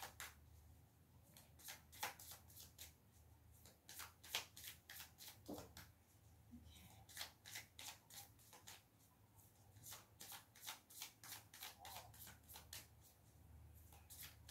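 A small deck of Lenormand cards shuffled by hand: a quiet, uneven run of short card clicks and flicks, coming in several brief bursts.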